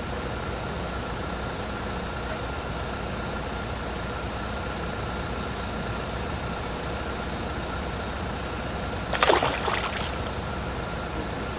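Steady rush of water from a fishing pond's water cannon running to keep the winter pond open, with a faint steady hum under it. A brief rustling clatter about nine seconds in.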